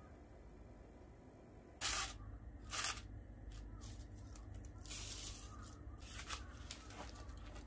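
Aluminium foil crinkling and rustling as foil-wrapped food packets are handled on a wire grill, beginning about two seconds in with two sharp bursts, then more rustling.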